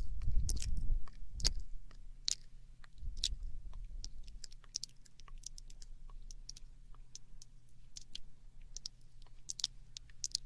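ASMR mouth sounds close to a binaural microphone: irregular wet tongue clicks and lip smacks, several a second. A low rumble runs under them in the first second and a half and again around three to four seconds in.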